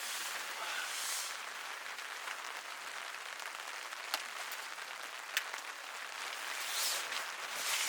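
Steady rain falling, with a few sharp ticks of single drops about four and five and a half seconds in.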